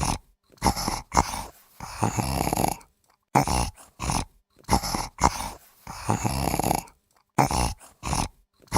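Zebra calling: a bark-like, braying call repeated in bouts of two short calls and one longer one, three bouts in a row.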